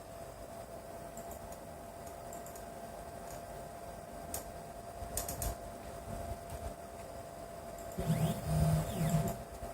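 Small CNC router used for V-bit cutting of a PCB, running with a steady hum and scattered light clicks. About eight seconds in, a louder burst of motor noise comes in, with pitches gliding up and down, then dies away.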